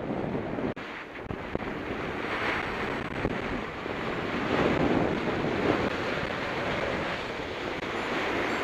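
Strong wind buffeting the microphone as a steady rushing noise that swells and eases in gusts.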